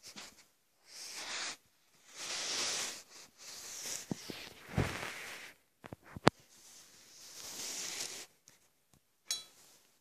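Rustling handling noise from a handheld phone being moved about, broken by a few sharp clicks and knocks. The loudest knock comes about six seconds in, and a short clink comes near the end.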